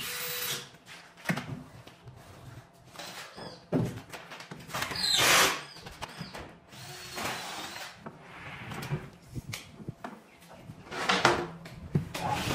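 Workshop handling noises as quick-release bar clamps are loosened and pulled off a wooden cabinet: a run of clicks, knocks and scrapes, with two longer noisy bursts, one about five seconds in and one near the end.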